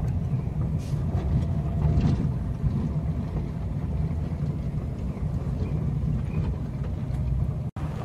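Steady rumble of a road vehicle travelling along a rough road, heard from on board. The sound cuts out for an instant near the end.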